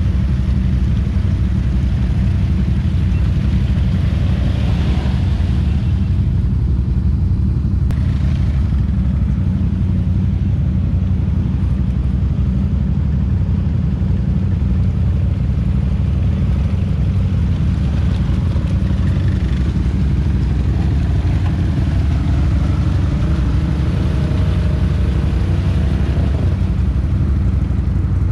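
ATV engines running, a steady loud low drone with no pauses, as quads churn through a mud hole. Fainter engine notes rise and fall over it, most clearly in the second half.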